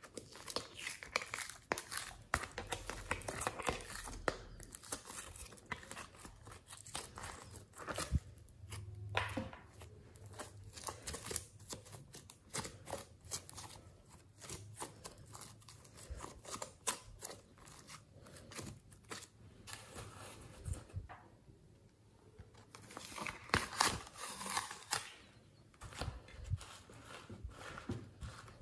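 Hands working glossy white slime: many short, sticky clicks and crackles as the slime is pressed, peeled, stretched and folded, coming in busier clusters now and then.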